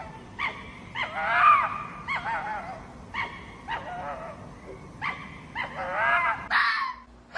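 Red fox vocalising: a string of short, high yips and whining calls that waver in pitch, one of them longer, about a second in, then harsher, raspier calls near the end.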